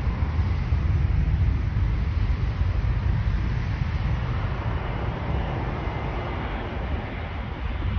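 Steady low rumble of a landing Airbus A320neo's jet engines, slowly fading, mixed with heavy wind on the microphone.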